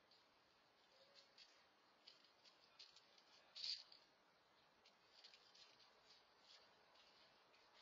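Near silence, with faint scattered clicks and light rustling, slightly louder about three and a half seconds in.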